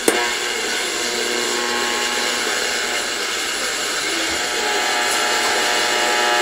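Zenith K510GA tube AM radio giving out a loud steady hiss with a buzz, interference it picks up from a fluorescent light. A sharp click comes just as it begins.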